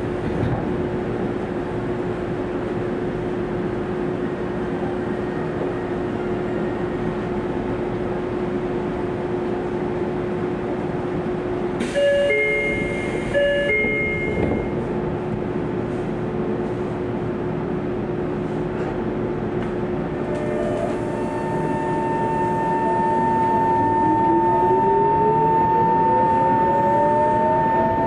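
Tokyo Metro 03 series electric train standing at a platform with a steady hum, and a brief chime about twelve seconds in. Near the end it starts off: the four-quadrant chopper control's steady whine sets in and a motor tone rises in pitch as the train accelerates.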